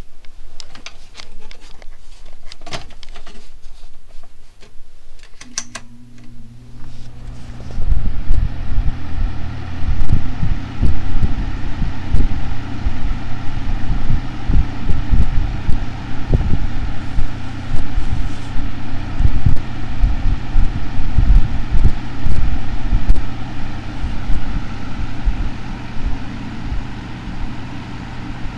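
Lasko 3733 box fan being switched on: a few clicks of handling, then about five seconds in its motor hums, and a couple of seconds later the blades come up to speed into a steady rush of air with uneven low buffeting. The motor shaft is a little stiff because the motor's end plates are not lined up correctly.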